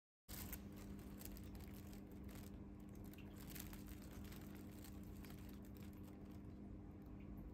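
Faint crinkling of a plastic carrier bag and its newspaper wrapping being handled, in irregular crackles, over a steady low hum.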